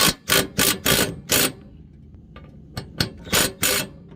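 Impact wrench fired in short bursts, hammering a riding mower's blade nut tight: about five quick bursts, a pause of over a second, then four more.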